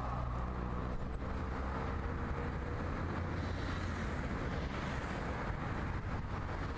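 Road traffic and a tram: a tram moving away close by at first, and cars driving past on the road beside the tracks, a steady low rumble with a faint rising whine in the first couple of seconds.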